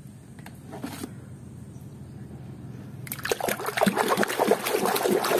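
A hand splashing and sloshing water in a plastic basin while washing a muddy toy. The washing is quiet at first, with a couple of faint knocks, then turns to busy, steady splashing about three seconds in.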